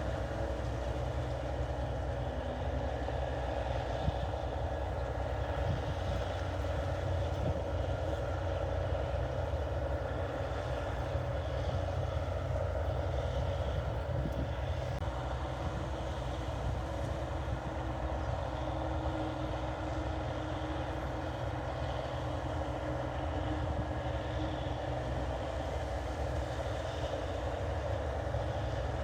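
NH 8080 rice combine harvester running steadily while harvesting rice: a continuous low engine and machinery sound that does not change.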